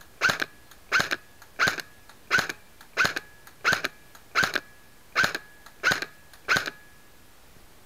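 G&G Combat Machine Raider electric airsoft M4 firing ten single shots on semi-automatic, about one every 0.7 seconds, each a sharp crack with a brief ringing tone. The shots stop about two-thirds of the way in.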